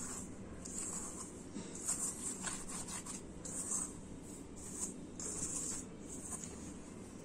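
Hands rubbing and tossing dry wheat flour and refined flour, moistened with a little oil, in a bowl: a series of soft, irregular scratchy swishes.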